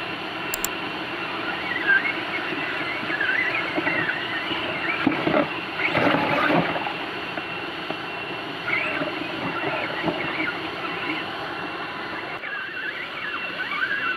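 A rocky stream running, with an electric RGT RC crawler driving through the water; high squealing whines rise and fall as its motor and gears work, louder around the middle.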